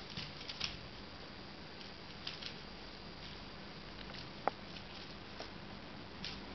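A kitten batting a toy mouse on a springy wire stuck to a glass door: light pattering and soft taps, with one sharper click about four and a half seconds in.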